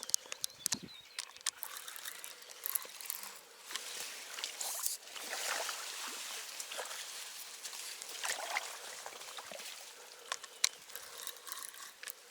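Water trickling and splashing, with scattered clicks and rustles.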